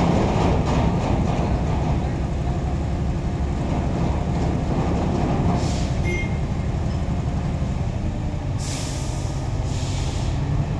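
Heavy diesel engines running steadily while a truck crane lifts a container off a truck's trailer. Short air hisses come a little past halfway and twice more near the end.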